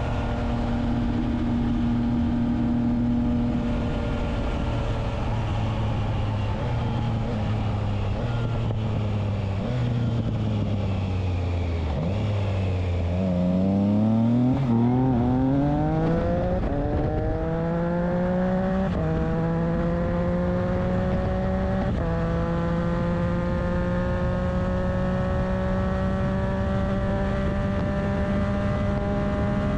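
Triumph Trident 660's inline three-cylinder engine through a Spark exhaust with its dB killer fitted. The revs fall in steps as the bike slows, then climb hard, with three upshifts in the second half, and settle into a slowly rising steady pull.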